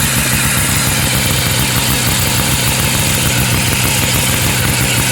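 A 1970 Arctic Cat Panther snowmobile engine runs steadily at a constant speed just after being rope-started, through a reproduction exhaust.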